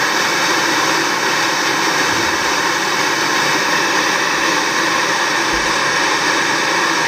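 Old CRT television hissing with loud, steady static noise that does not change.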